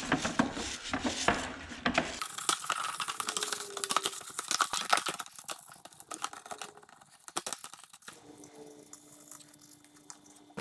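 Scratchy scrubbing and scraping with many small clicks and knocks, from a tool being worked over and into greasy chainsaw parts during cleaning. It is busiest in the first half and thins out toward the end.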